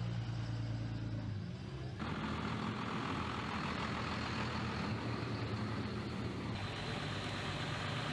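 Classic truck engine running steadily as the truck moves along. The engine sound changes abruptly about two seconds in.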